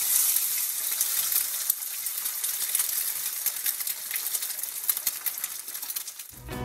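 An egg frying in a cast iron skillet: a steady sizzle with small crackling pops. It grows fainter and stops shortly before the end.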